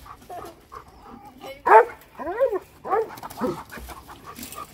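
A run of about four short animal cries that rise and fall in pitch, starting about a second and a half in, the first one the loudest.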